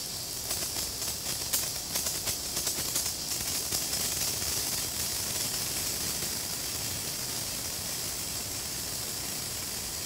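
Senko hanabi (Japanese incense sparkler) burning: a steady high fizzing hiss with soft, quick crackles over the first few seconds. Its glowing dross ball is throwing off branching sparks.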